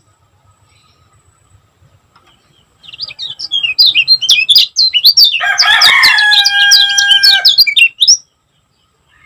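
Kecial kuning white-eye singing a fast, dense run of sharp chirps starting about three seconds in and stopping abruptly near the end. A drawn-out steady note sounds under the chirps midway.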